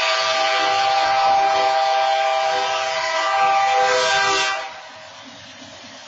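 BNSF locomotive 4609's air horn sounding a long multi-tone chord for the grade crossing, the last long blast of the long-long-short-long crossing signal; it cuts off sharply about four and a half seconds in, leaving the much quieter rumble of the train rolling past.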